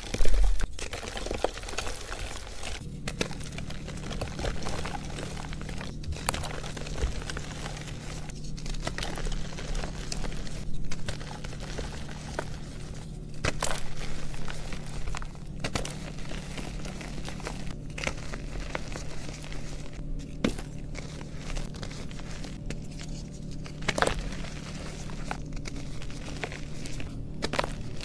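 Hands crushing blocks of reformed gym chalk, a continuous dry crunching and crumbling with frequent sharp cracks as pieces snap. A loud knock comes right at the start, and a low steady hum runs underneath from about three seconds in.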